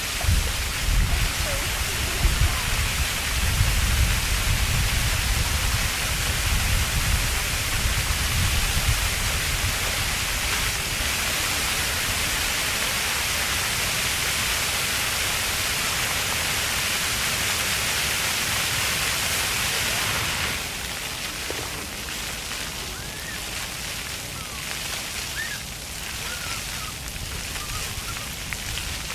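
Ground-level park floor fountain jets spraying and splashing steadily, with children's voices in the background. About twenty seconds in the spray drops off sharply, leaving fainter splashing and scattered children's shouts.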